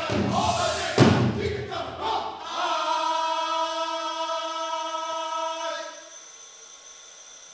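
Live percussion ensemble: dense clattering percussion with one loud hit about a second in. Then, from about two and a half seconds, the players' voices hold one long note together for about three seconds before dropping to a quieter held tone.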